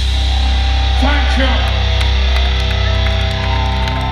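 Heavy metal band played live through a PA, its final chord held and left ringing as a loud low drone that slowly fades. A voice shouts briefly about a second in, and a higher sustained tone joins near the end.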